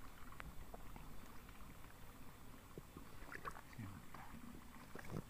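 Faint sloshing of shallow muddy water with scattered small splashes and ticks, as a hand works down into a flooded eel burrow in a grassy bank.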